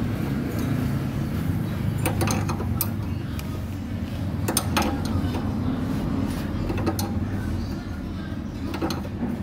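Wrench working the screw of a bushing puller on a lower suspension arm bushing: a few short metallic clicks and knocks over a steady low hum.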